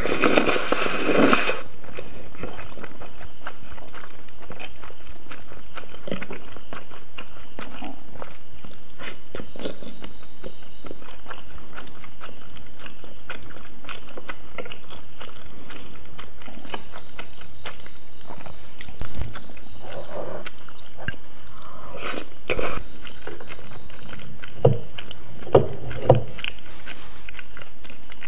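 Close-miked eating of saucy black bean noodles (jajangmyeon): a loud slurp at the very start, then a long stretch of wet chewing with soft mouth clicks and smacks, and a few louder mouth sounds in the second half.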